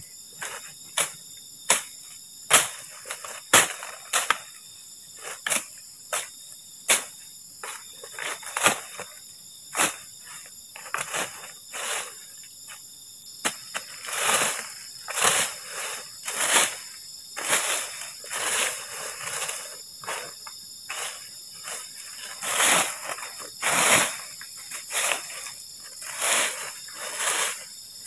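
A long stick sweeping and striking dry leaf litter in repeated strokes about once a second, clearing the ground of snakes and centipedes: sharp taps at first, longer rustling swishes from about halfway. A steady chorus of crickets runs underneath.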